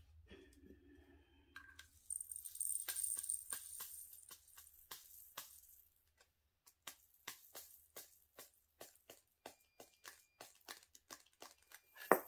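Green resin diamond-painting drills poured from a plastic spouted tray into a small plastic bag with a brief hissing rattle, followed by a long run of light clicks, two or three a second, as the tray is tapped to shake off drills clinging to it from static. One louder click comes at the very end.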